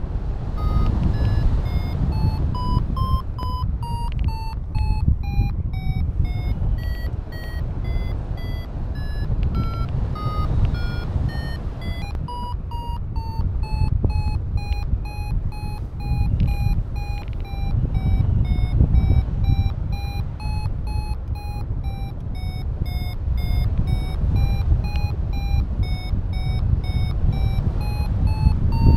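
XCtracer Mini IV paragliding variometer beeping in a continuous run of short beeps whose pitch drifts up and down, the climb tone that signals the glider is rising in lift. Under it, a steady low rumble of wind from the airflow on the microphone.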